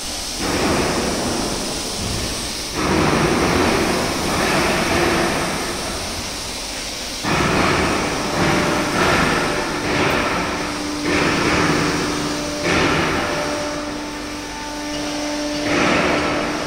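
Factory workshop machinery noise that swells and eases in loud stretches of one to three seconds. A steady hum joins it about ten seconds in.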